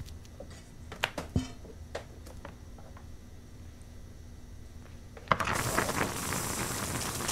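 A few light knocks and clinks of kitchen utensils, then about five seconds in a meatball going into a hot pan of tomato sauce sets off a loud, crackling sizzle that keeps on.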